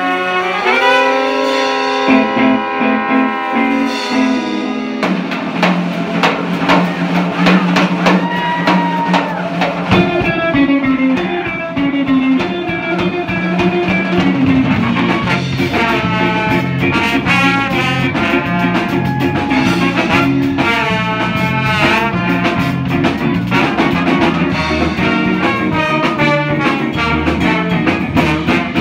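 Live band with trumpet, trombones, electric guitar and drum kit playing. The horns hold a long chord, the drums come in about five seconds in, a bass line enters about ten seconds in, and then the horns play riffs over a steady beat.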